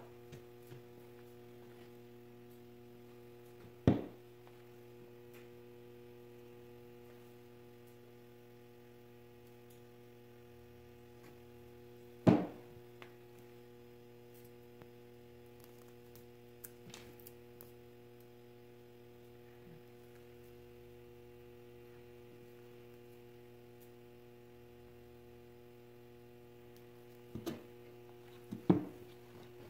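Steady electrical hum, with a few sharp knocks of a wooden block and small objects being set down on an MDF-topped workbench: one about four seconds in, one about twelve seconds in, and two close together near the end.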